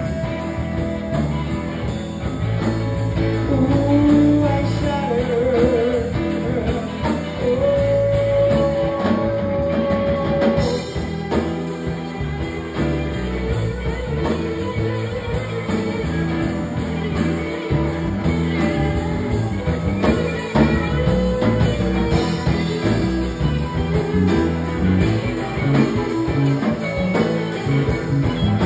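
Live rock band playing: electric guitar with held notes, one wavering in pitch, over drums and bass.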